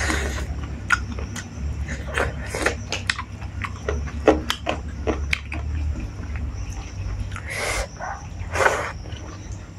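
Close-up mouth sounds of eating rice and chicken curry by hand: chewing with many short wet clicks and lip smacks, with a few longer squishy bursts, over a steady low hum.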